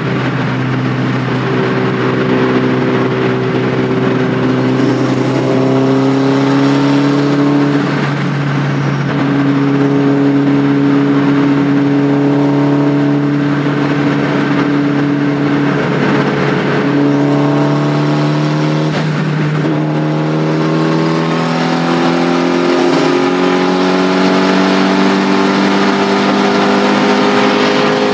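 Turbocharged Honda Accord's engine heard from inside the cabin, running hard at highway speed with a steady drone that climbs slowly in pitch over the last dozen seconds as it accelerates.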